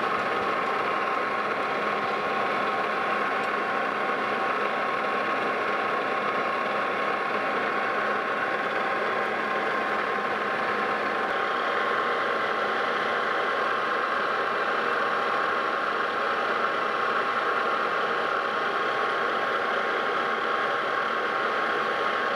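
Lodge and Shipley metal lathe running under power through a threading pass: a steady mechanical hum with a constant whine, growing slightly brighter about halfway through, as a carbide insert cuts a left-hand Acme thread in a steel shaft. The cut is shallow, about three thousandths deep, but takes the full width of the thread face, throwing a wide, thin chip.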